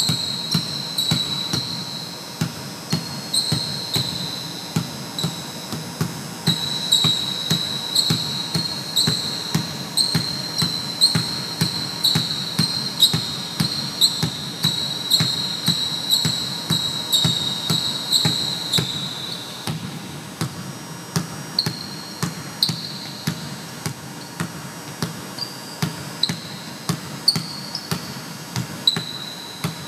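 A basketball dribbled hard and fast on a hardwood gym floor, the bounces coming in a quick, steady rhythm during ball-handling drills. Sneakers squeak sharply on the floor as the feet shift, often in the first two-thirds and only now and then after that.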